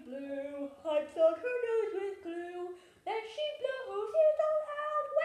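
A puppeteer's voice singing a carol tune in held notes that step up and down, with a short break about three seconds in.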